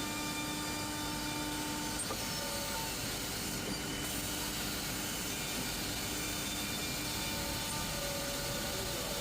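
Six-sided CNC panel drilling machine running, a steady mechanical hum and hiss with whining drive tones that start and stop as the heads move. A faint click comes about two seconds in.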